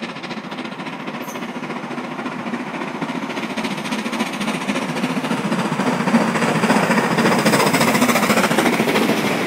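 Steam locomotive chuffing rapidly, its exhaust beats growing steadily louder as it approaches and passes close by.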